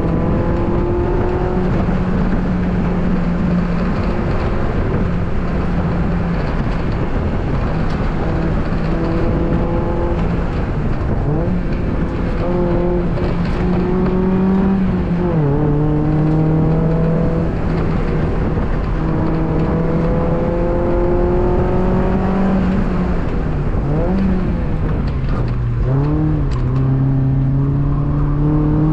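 2002 Mazda Miata's 1.8-litre four-cylinder engine under hard driving, its pitch climbing again and again under acceleration and dropping at each shift, with a few quick rev blips on downshifts.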